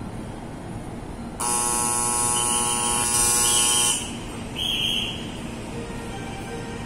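Station platform buzzer sounding for about two and a half seconds, starting and cutting off abruptly. A short hiss follows about a second after it stops.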